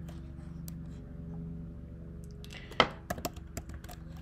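A few computer keyboard keystrokes, sharp separate clicks clustered about three seconds in, over a steady low hum.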